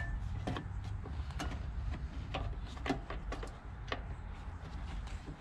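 Irregular light clicks and taps, about eight in five seconds, as small engine parts are handled while rubber grommets are pushed into place.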